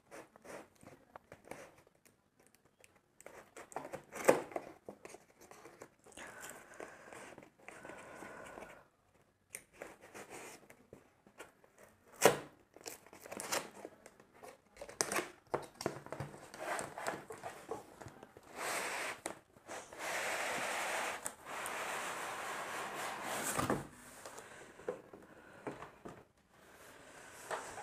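Cardboard box being unpacked by hand: a knife slitting the packing tape, cardboard flaps crinkling and tearing, with a few sharp knocks. About two-thirds of the way through comes a longer, steady rustling scrape as the foam-wrapped contents slide out of the box.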